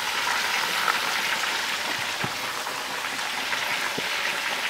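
Hot oil in a large cast-iron Dutch oven bubbling hard around freshly dropped raw turkey pieces as their moisture boils out. It makes a steady crackling sizzle with a few small pops.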